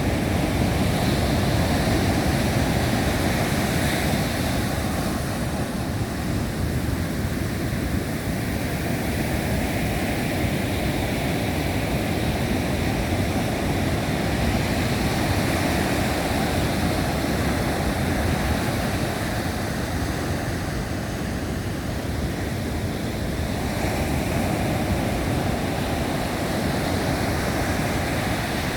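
Atlantic surf breaking and washing in a continuous rush that swells and eases slowly, mixed with strong wind buffeting the microphone.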